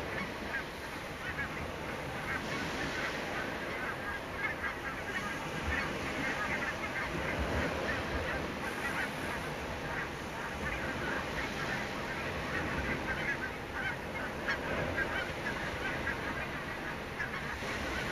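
A flock of barnacle geese calling, many short yapping honks overlapping without a break.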